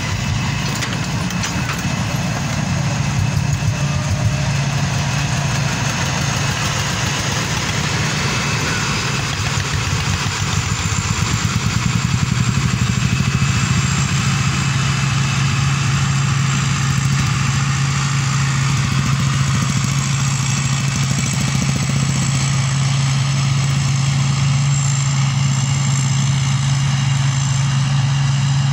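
Diesel engine of rice-harvesting machinery running steadily: a constant low hum with a busy mechanical clatter above it.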